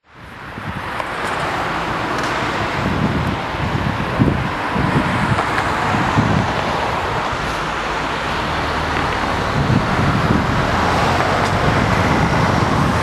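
Steady outdoor city ambience with road traffic noise, fading in over the first second.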